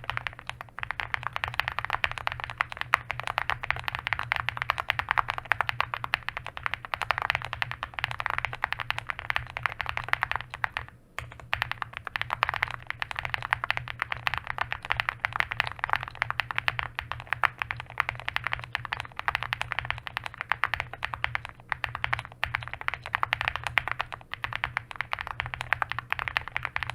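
Owlab Spring custom mechanical keyboard, with an FR4 plate, full foams and Tecsee Singularity switches, being typed on fast and continuously: a dense stream of keystroke clacks with one brief pause about eleven seconds in.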